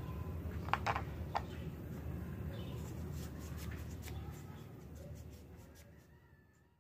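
Wooden pieces of a handmade toy scissor clicking and tapping as they are handled and worked on a tabletop: a few sharp clicks about a second in, then fainter ticks, over a steady low rumble that fades out near the end.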